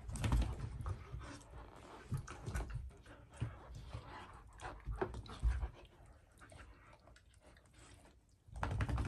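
An Alaskan Malamute and a golden retriever puppy play-fighting: scuffling, with quick knocks and clicks of paws and claws and soft dog sounds, dying away to near silence about six seconds in.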